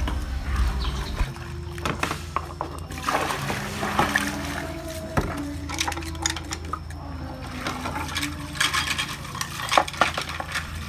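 Distilled water poured from a glass into a small plastic cup of dry soil, then a plastic spoon stirring the wet soil, scraping and clicking against the cup.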